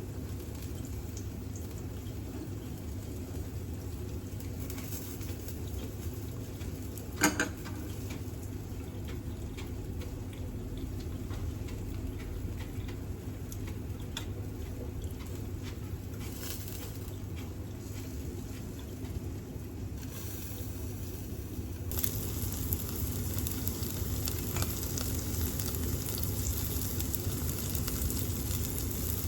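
Pork and onion yakitori skewers sizzling on an electric shichirin grill, over the steady hum of a range hood fan. A single sharp click about seven seconds in, and the sizzling grows louder and brighter for the last several seconds.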